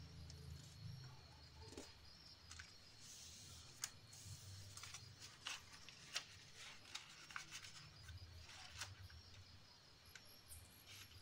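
Sheet of origami paper being folded and creased by hand: irregular soft crinkles and sharp little creasing clicks, bunched in the middle of the stretch.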